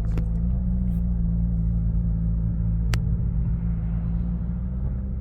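Steady low engine and road rumble inside a moving car's cabin, with a single sharp click about three seconds in.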